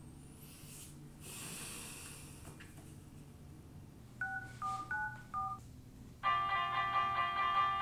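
Mobile phone beeping under the fingers: about five short electronic beeps at a few different pitches, then a loud, steady electronic tone with a pulsing beat, like a phone game's sound.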